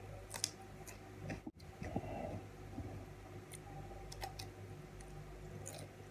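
Chewing of a crisp raw cucumber stick, heard as a scatter of sharp crunches and mouth clicks over a steady low hum.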